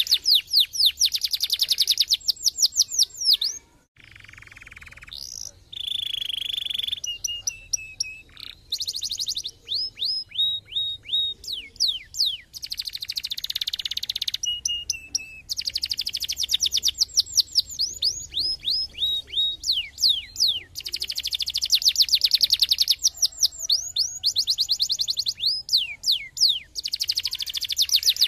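Domestic canary singing: long, fast trills of rapidly repeated falling notes, broken by a short pause and a few held whistled notes.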